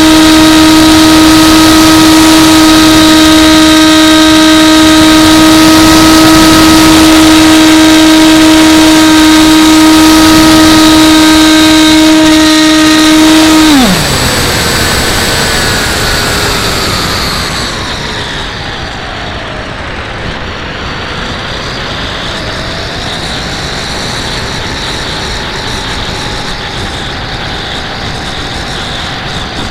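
Electric motor and propeller of an AXN Floater RC plane whining steadily at high throttle, then throttled back about fourteen seconds in, the pitch falling sharply. After that a quieter whine drifts down and back up in pitch over a steady rush of wind.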